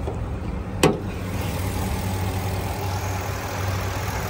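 2016 Ford F-350 Super Duty's 6.2-litre V8 idling steadily, with a single sharp clunk a little under a second in as the hood is opened.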